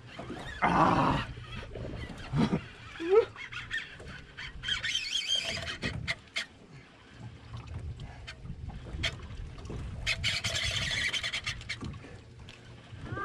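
A man's short grunts and groans of effort while fighting a very large amberjack on a heavy rod and reel, several in the first few seconds. Two later stretches of reel-cranking noise with scattered clicks.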